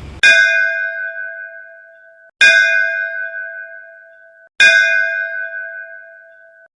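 Three identical bell-like chimes about two seconds apart, each struck and ringing down, then cut off sharply: a tubular-bell chime sound effect.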